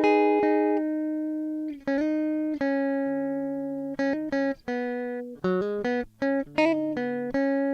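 Background music: a solo guitar picking a slow melody, one plucked note after another, each ringing out and fading.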